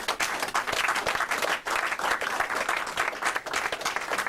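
A small group of people clapping by hand: dense, irregular applause.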